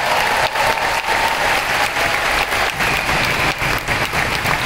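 A large audience applauding: a steady, dense wash of many hands clapping at once.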